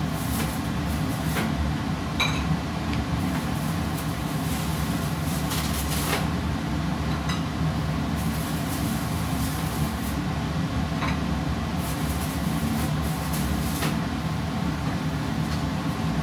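Light clicks and knocks of things being moved about inside an open refrigerator, over a steady low hum.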